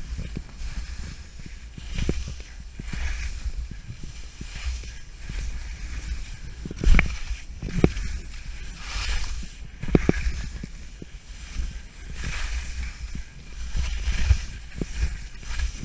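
Head skis swishing and scraping through snow down a mogul run, a swell of hiss with each turn about every second, and sharp knocks as the skis hit the bumps, the loudest about seven seconds in, over a steady low rumble.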